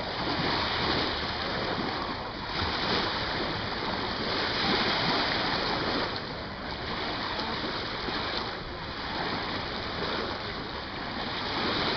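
Steady wash of shallow lake water lapping and splashing around people wading, swelling and easing every few seconds.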